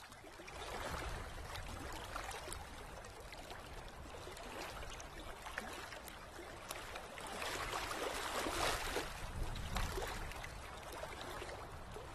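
Water splashing and sloshing as a hand stirs it in a metal basin, with many small drips and splashes, louder about 7 to 9 seconds in.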